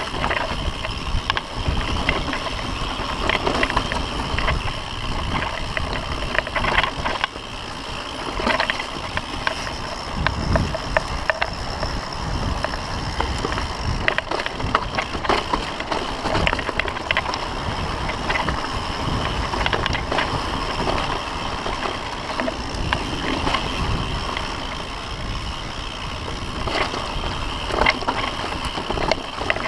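Mountain bike riding fast down a dirt and rock singletrack: the tyres rumble steadily over the trail, and the bike clacks and rattles often as it hits bumps and rocks.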